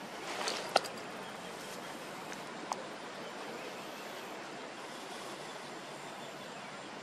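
Steady outdoor background hiss with a few sharp clicks, the loudest about a second in and a smaller one near three seconds in.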